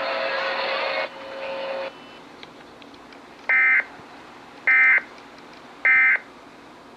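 Emergency Alert System end-of-message data tones: three short identical bursts of high, warbling modem-like tones, about a second apart, marking the end of the Amber Alert broadcast. Before them, broadcast hiss with a steady tone fades down about a second in.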